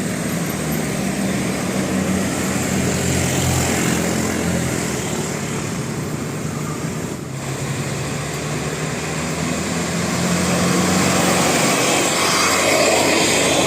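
Bus engines running with steady traffic noise, a low droning hum that grows louder about ten seconds in.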